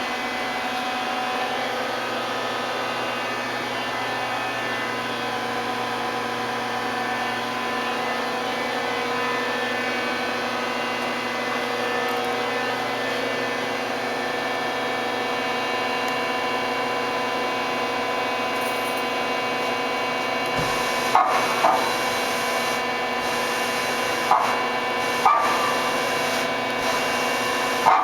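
Mori Seiki ZL-25A CNC turning center running, a steady mechanical hum with several steady whining tones. From about two thirds of the way in, several sharp metallic clunks with a brief ring sound over it.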